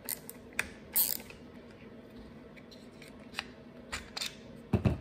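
Short, sharp clicks and clatters of plastic parts and a screwdriver being handled while the air filter base and carburetor are taken off a gas hedge trimmer: about seven of them, the loudest about a second in and a heavier knock near the end.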